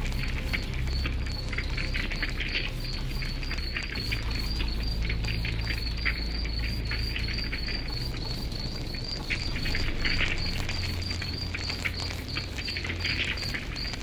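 A wood campfire crackling and popping, with a low steady rumble, while a cricket chirps steadily and evenly in the background.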